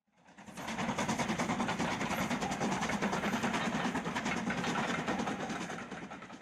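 Steam locomotive hauling a passenger train at speed, its exhaust beating rapidly and evenly. It fades in over about a second and starts fading away near the end.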